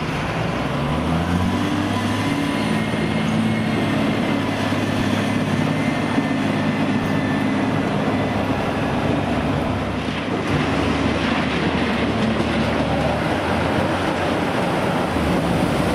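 Diesel engines of Terex and Volvo articulated dump trucks working across a gravel riverbed: a steady heavy rumble whose pitch rises about a second in.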